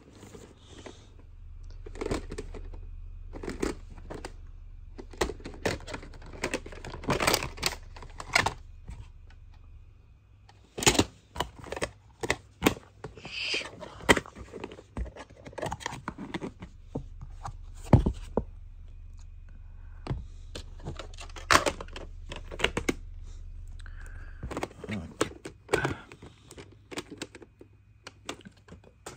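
Plastic VHS clamshell cases knocking and clicking against each other as they are picked up, shifted and set down: a long string of irregular taps and clacks, with a low handling rumble under most of it that stops near the end.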